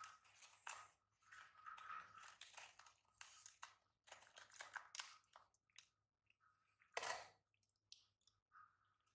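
Baby monkey chewing popcorn: a faint, irregular run of soft crunches and clicks, the loudest about seven seconds in.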